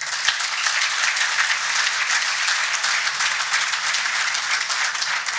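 A large audience applauding: dense, steady clapping that starts suddenly.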